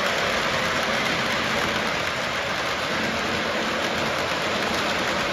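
Model trains running on a tabletop layout: a steady noise of wheels rolling on the track as a freight train passes close by.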